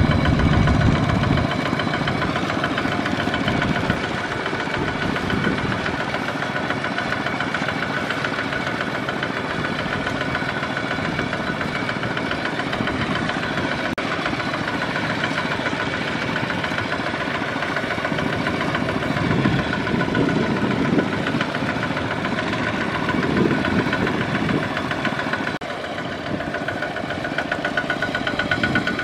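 Single-cylinder diesel engine of a Kubota ZT155 two-wheel walking tractor running steadily with a fast, even beat, pulling a trailer loaded with rice sacks through deep mud.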